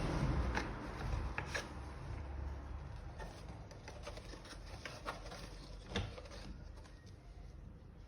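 Hands working on vacuum cleaner parts during a motor replacement: rustling and scraping with a low rumble in the first couple of seconds, then several sharp clicks and knocks, the loudest about six seconds in.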